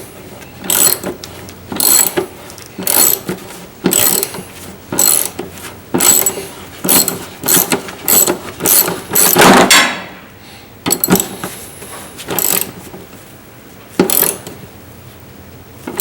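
Hand ratchet wrench clicking in short back-and-forth strokes, about one burst a second, running bolts in while a driveshaft carrier bearing is fitted. The strokes thin out to a few separate clicks over the last few seconds.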